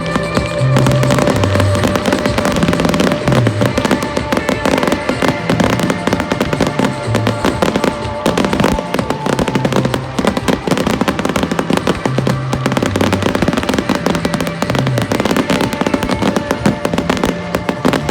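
Fireworks display: a dense, continuous crackle of many small bangs in quick succession, with music playing underneath, its bass line moving in steps.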